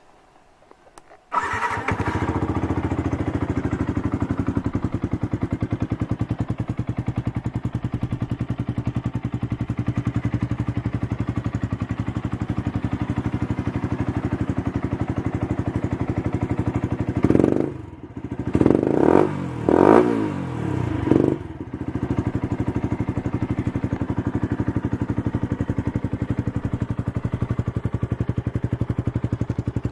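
Yamaha YZF-R125's single-cylinder four-stroke engine idling steadily through its exhaust, starting about a second and a half in. Around twenty seconds in it is blipped through four or five quick revs, then settles back to idle.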